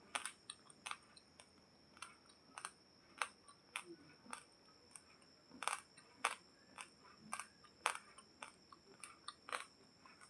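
Raw basmati rice grains being chewed: an irregular series of sharp, dry crunches, about two a second.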